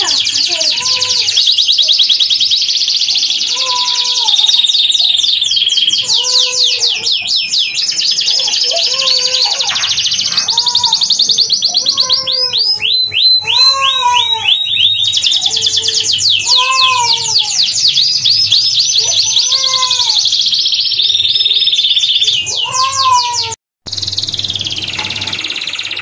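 Domestic canary singing a long, continuous song of fast trills and rolling notes, with a lower arching call repeating every second or two beneath it. The sound cuts out for an instant near the end.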